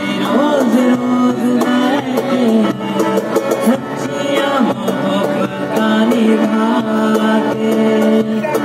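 A song performed live: a voice singing over a strummed acoustic guitar.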